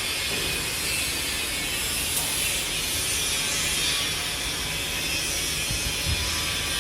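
Woodworking CNC router running, a steady mechanical whirr and hiss with a low rumble beneath.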